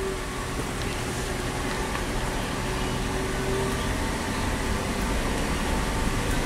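Steady hum of a slowly moving car's engine and air conditioning, heard from inside the cabin.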